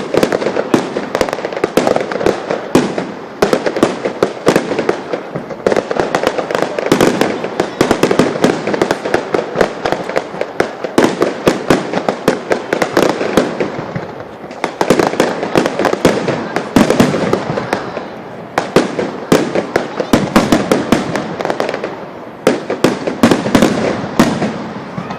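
Fireworks finale: a dense, continuous barrage of shell bursts, bangs and crackling, many reports a second with no gap, easing for a moment a few times before building again.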